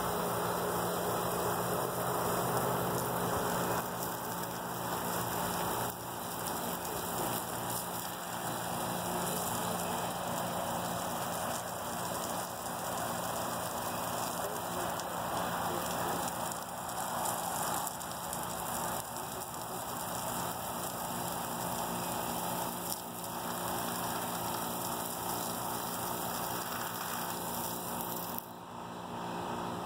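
Water spraying steadily from a garden hose nozzle and pattering on grass, with a brief dip near the end.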